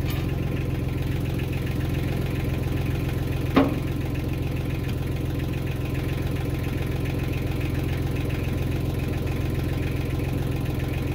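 Farm tractor engine idling steadily, with a single sharp knock about three and a half seconds in.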